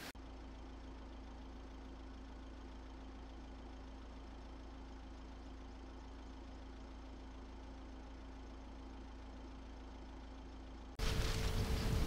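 Idling vehicle engine: a steady low hum with a faint steady tone above it, cutting off suddenly about eleven seconds in.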